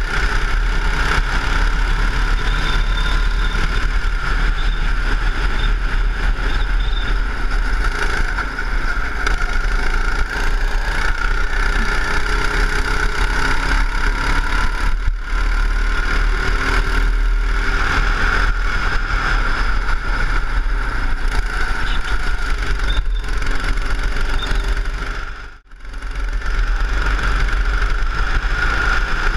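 Go-kart engine running at speed on the circuit, its pitch drifting up and down with the throttle, under a constant rush of wind on the onboard microphone. The sound briefly drops out about 25 seconds in.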